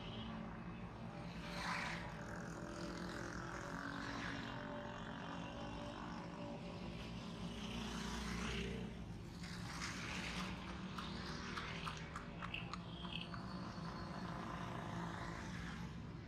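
Street traffic: small motorcycle and motorcycle-rickshaw engines running and passing close, over a steady low engine drone. A run of short clicks comes about two-thirds of the way in.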